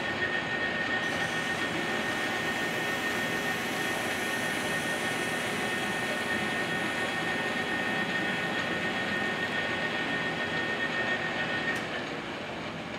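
Metal lathe running at speed with a steady whine while a parting tool cuts a small turned metal foot off the bar. The sound eases a little near the end as the cut finishes.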